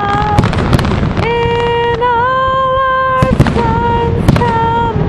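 Fireworks bursting overhead: a handful of sharp bangs, the loudest about three and a half seconds in. Under them runs a melody of long held notes.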